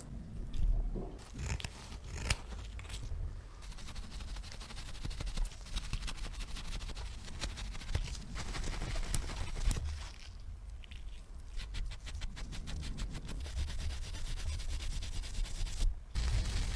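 Hand rubbing and scraping on a small object, with scattered sharp clicks and taps and, a little past halfway, a run of quick, even back-and-forth strokes.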